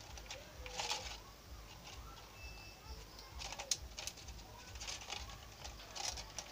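Thin clear plastic drink bottle, cut into strips, crinkling and crackling as it is handled, in a few short bursts of rustling.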